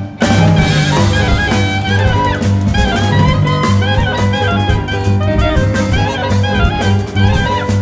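Live jazz-inflected ensemble music: clarinet and violin playing the melody over piano, double bass and drum kit, with steady drum hits throughout.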